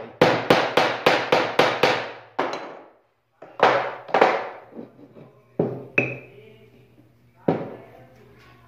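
A hammer strikes a hardwood block in quick succession, about seven blows in two seconds, knocking the pinned piece loose. A few separate wooden knocks follow as the blocks are handled and set on the bench, one with a brief metallic ring.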